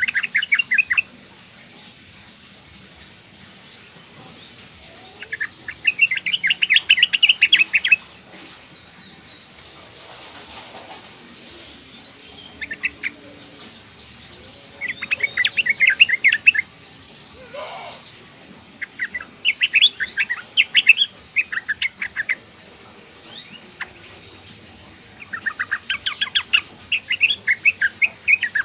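Yellow-vented bulbul (trucukan) giving a young female's call, the call meant to draw a male into song. It comes as about six bursts of quick, bubbling notes, each one to three seconds long, with pauses of a few seconds between them.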